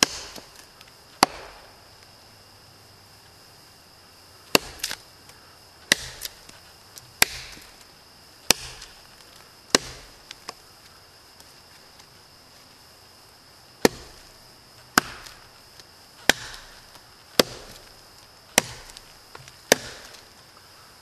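Bark River Jonburnaxe chopping knife chopping into a dead pine log: about a dozen sharp chops roughly a second apart, in two runs with a pause of a few seconds between them. Insects buzz faintly and steadily in the background.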